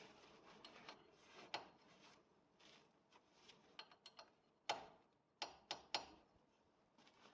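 A few sharp clicks and clinks of tools and metal parts being handled during brake slide-pin work: one about a second and a half in, then four in quick succession near the end, over faint room noise.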